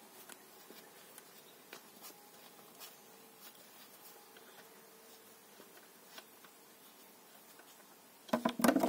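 Faint, scattered small clicks and scrapes of a socket extension and then fingers unscrewing a plug from the Renault Twizy's reduction gearbox casing. A much louder burst of sound comes in near the end.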